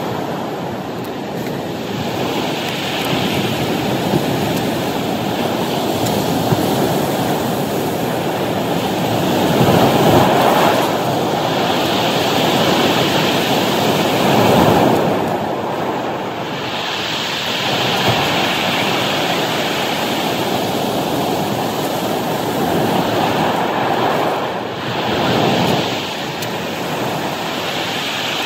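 Ocean surf breaking and washing over a cobble beach: a continuous rush that swells and eases as successive waves come in.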